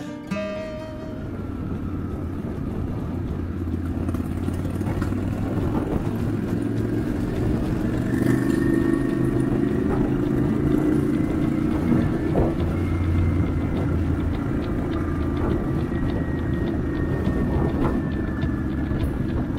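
Motorcycle being ridden at a steady road speed: a steady low rumble of engine and road noise.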